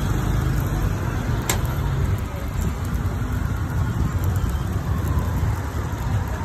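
Steady street-side traffic rumble from passing motor vehicles, with faint background voices.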